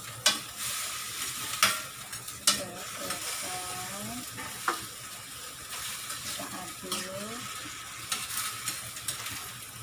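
Vegetables stir-frying in oil in a metal frying pan: a steady sizzle, with a metal spoon knocking and scraping against the pan a few times as they are stirred.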